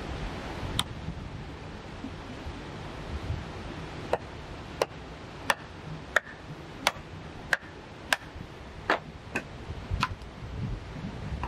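Batoning a log: a wooden club knocks on the spine of a machete driven into the top of an upright log, splitting it lengthwise. One sharp knock, then after a pause a steady run of sharp wooden knocks about every two-thirds of a second, with a duller crack and clatter near the end as the log comes apart.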